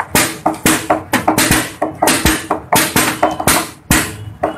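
Rapid clacking of plastic chess pieces set down on a vinyl board on a table, alternating with slaps on a digital chess clock's buttons, about four or five knocks a second, as two players trade moves at blitz speed.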